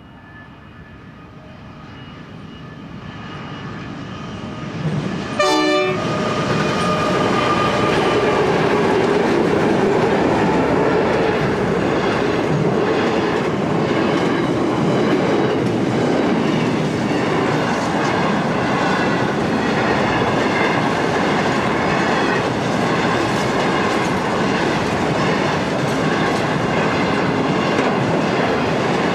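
Diesel-electric locomotives of a long freight train approach, growing steadily louder, with a short horn blast about five seconds in as they reach the crossing. Then comes the steady rumble and clickety-clack of the loaded steel wagons rolling past close by.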